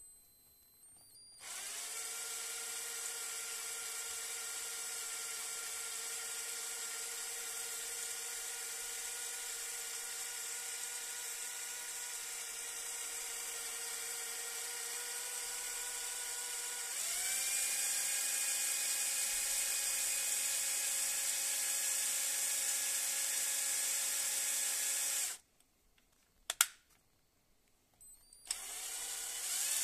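Cordless drill running, driving a small two-stage 1:25 cycloid reduction gear, with a steady whine. About halfway through it speeds up, rising in pitch and getting louder. Near the end it stops, gives one sharp click, and starts again.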